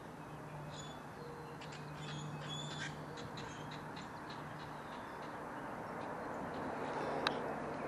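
Birds calling, a scatter of short high calls, over the steady rush of a flowing river. A single sharp click sounds near the end.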